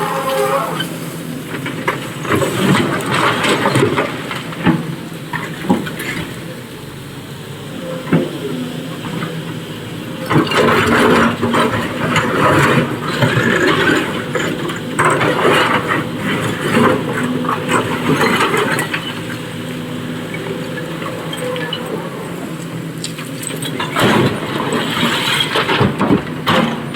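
SANY excavator's diesel engine running steadily under load while it dumps quarry stone into a truck bed. Three spells of dense clattering rock sit on top of the engine: near the start, through the middle, and near the end.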